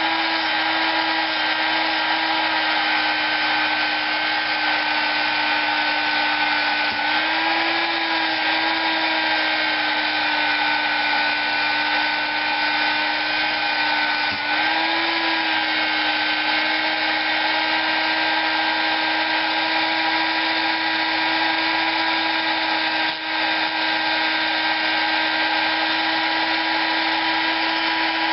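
High-speed rotary tool spinning a polishing pad against the aluminium cylinder head of a Predator 212 engine, smoothing the ported surfaces. It runs at a steady whir, its pitch shifting briefly twice as the load on the pad changes.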